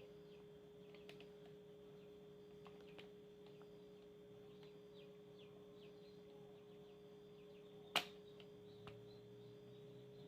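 Near silence: a faint steady hum with faint, short high chirps repeating about twice a second, and one sharp click about eight seconds in.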